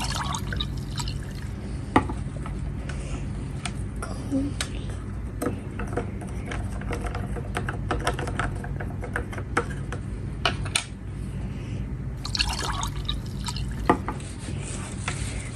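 Water poured from one small plastic cup into another, then stirred with a wooden stick: many small irregular clicks and taps of the stick against the plastic cup, with a short swish of liquid near the end.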